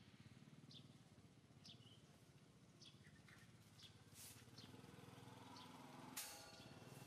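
Faint outdoor ambience: scattered short, high chirps over a low steady hum that grows slightly louder, with one sharp click about six seconds in.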